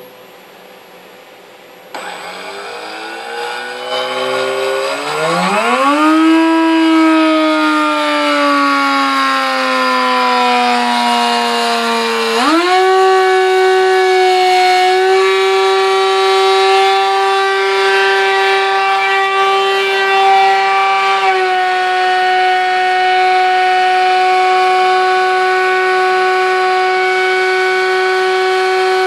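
CNC router spindle whine with a 6 mm end mill milling a light-metal plate. It starts about two seconds in, climbs in pitch, sags slowly, then jumps up about halfway through and holds a steady high whine to the end.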